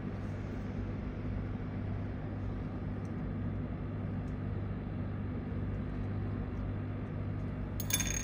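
A steady low electrical hum with a few faint ticks, and near the end one short bright metallic clink with a brief ring, as of a small screwdriver or screw touching metal.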